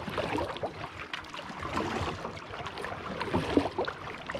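Kayak paddling on calm water: small irregular splashes and drips as the paddle dips in and out, with water lapping at the plastic hull.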